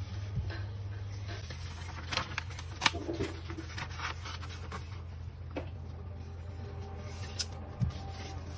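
A sheet of paper being handled and folded on a tabletop: scattered rustles and creasing, with one sharp snap about three seconds in, over a steady low hum.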